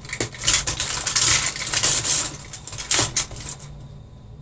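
Rustling and clattering of desk objects being handled while a ruler is fetched, with a few sharp knocks about three seconds in.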